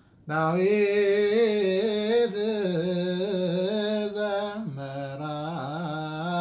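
A man's solo voice chanting a Ge'ez Abun hymn in the Ethiopian Orthodox zema style, holding long melismatic notes with slow wavering ornaments. It comes in after a short breath and steps down in pitch about three-quarters through.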